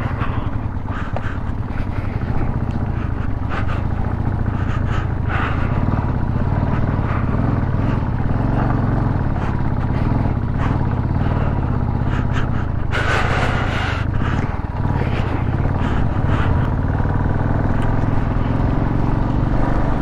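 Royal Enfield single-cylinder motorcycle engine running under way over a broken, rough road, with scattered knocks and rattles from the bumps. A brief rushing hiss comes about two-thirds of the way through, and the engine pitch rises near the end.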